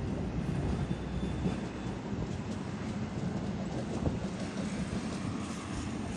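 Trams running along street tracks, their steel wheels rumbling and clattering over the rails, with a faint high wheel squeal about a second in.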